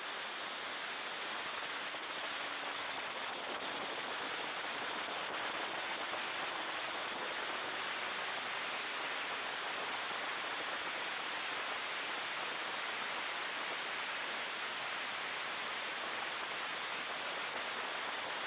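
Steady rushing wind and road noise in the cabin of a BMW E36 M3 race car at speed, with no clear engine note above it.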